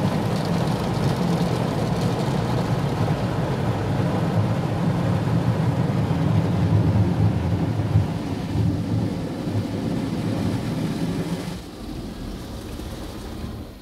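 Automatic car wash spraying water over the car, heard from inside the cabin: a dense, steady rushing and drumming of water with a low rumble. It drops noticeably in level about twelve seconds in.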